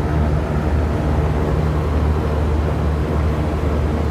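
Packaged air-conditioning unit running with a steady low hum. Its second compressor is not engaged because the compressor 2 contactor is not pulling in.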